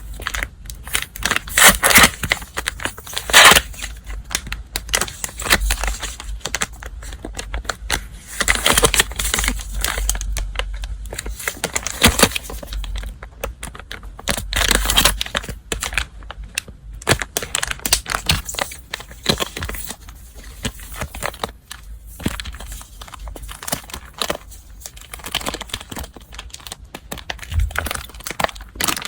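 Paper and gift packaging being handled and unwrapped by hand: irregular crinkling and rustling with sharp crackles, on and off throughout.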